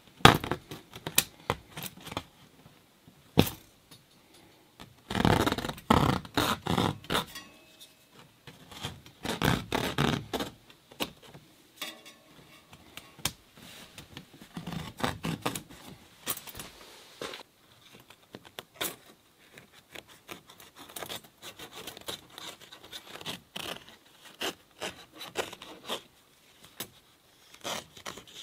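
A folding knife cutting through a canvas tent wall inside a stove jack's metal ring: irregular scraping and ripping strokes of the blade through the fabric, with sharp ticks between them and louder stretches of cutting about five and nine seconds in.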